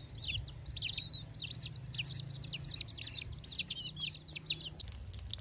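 Domestic baby chicks peeping: a fast run of high, downward-sliding peeps, several a second, that stops about five seconds in.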